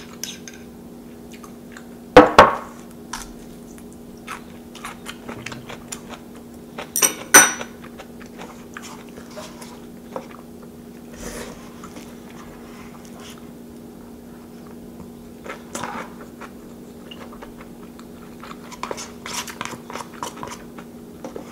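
Close-miked eating: chewing and crunching mouthfuls of food, with a metal spoon clinking and scraping against a paper cup. There are two loud sharp sounds, one about two seconds in and a pair about seven seconds in. A faint steady hum runs underneath.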